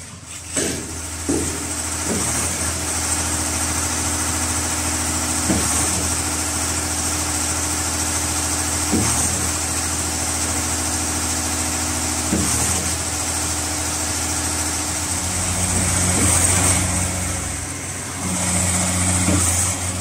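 Diesel engine of a concrete transit mixer truck running steadily, with a dull knock about every three and a half seconds. It grows louder twice near the end.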